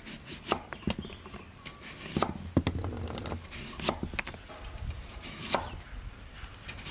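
Cleaver slicing through a large raw taro and knocking on a wooden cutting board: an irregular series of single cuts, roughly one every half second.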